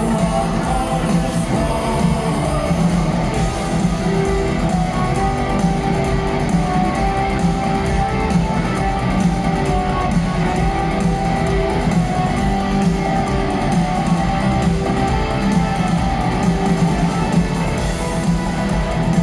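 Rock band playing live, an instrumental passage led by strummed electric guitars over bass, with no vocals.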